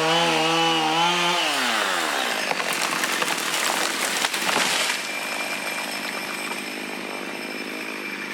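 Chainsaw engine running at steady speed, then dropping in pitch and winding down about a second and a half in. A few seconds of rough crackling noise follow, then a quieter steady hiss.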